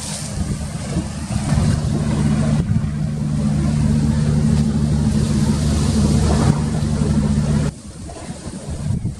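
An engine running steadily with a low hum, over rushing wind noise. The engine sound drops away suddenly near the end, leaving mostly wind.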